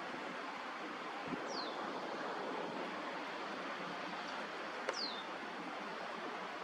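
Steady outdoor rushing noise with two short, high whistles from a bird, each falling in pitch, about three and a half seconds apart. A light click comes just before the second whistle.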